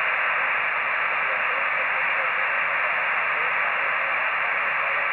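Icom IC-275H 2 m all-mode transceiver on receive in upper sideband, its speaker giving a steady hiss of band noise: the receiver is open with no station coming through yet.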